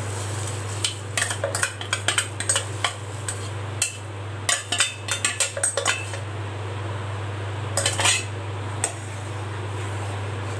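Mixer-grinder jar knocking and tapping against the rim of an aluminium pot in quick clusters of clicks as ground rice is shaken out of it, with a few more metal clinks a few seconds later, over a steady low hum.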